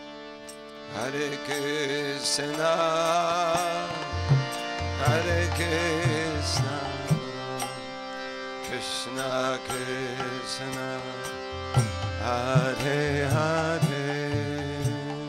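Devotional kirtan music: a voice sings a wavering, ornamented chant over a steady drone, with a hand drum and sharp metallic percussion strokes. The voice comes in about a second in.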